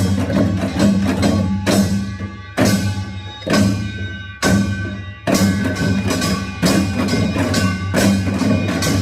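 Korean pungmul percussion playing a Yeongnam nongak rhythm, with ringing metal gong strokes over drums. Strong accented strokes fall a little under a second apart, and the playing turns quicker and denser about five seconds in.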